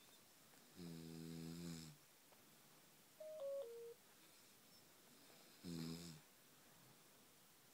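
A person snoring: two snores about five seconds apart, the first about a second long. Between them comes a short falling three-note electronic beep.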